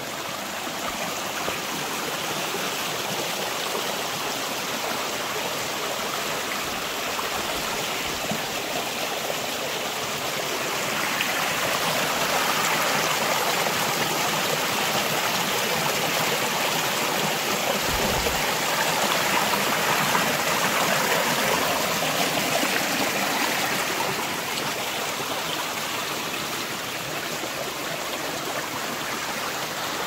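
Mountain stream running over boulders and stones in a steady rush of water, growing louder for about ten seconds in the middle.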